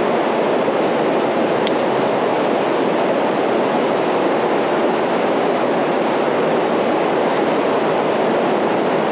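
Steady rush of creek water running over rocks, an even, unbroken roar.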